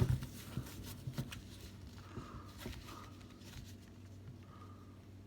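Handling of a DSLR camera rig: one sharp click right at the start and a few lighter clicks and rustles over the next second and a half, then faint room tone.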